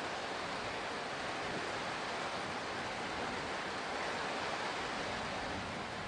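Heavy rain falling in a thunderstorm, a steady even hiss with no thunder clap in it.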